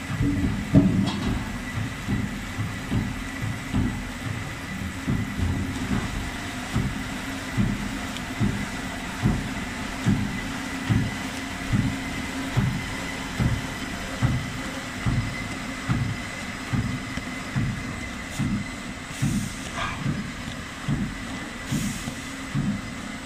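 Veneer peeling line machinery running: a spindleless veneer peeling lathe and its conveyor, with a steady high tone over a low, regular thump about once a second.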